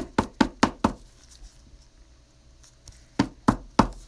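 Sharp taps on a tabletop: a quick run of five in the first second, then three more near the end.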